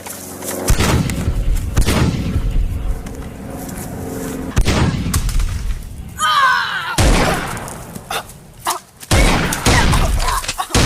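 Background music with repeated booms and thuds.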